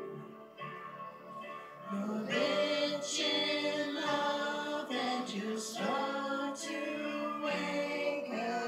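A small worship team of several singers with keyboard accompaniment performing a slow Christian worship song. Held keyboard chords sound on their own for about the first two seconds, then the voices come in singing together.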